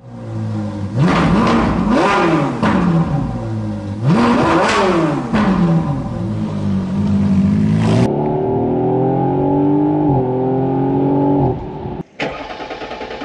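Car engine revved twice, the pitch climbing and falling back each time, then held at a steady note for several seconds before it stops. After a brief break near the end, a quieter engine sound takes over.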